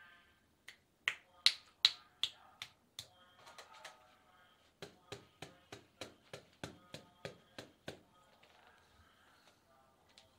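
Sharp snapping clicks from a hand massage, the masseuse's hands snapping on the client's hand and fingers. There are five loud pops about a second in, then, about halfway in, an even run of about a dozen lighter snaps at roughly three or four a second.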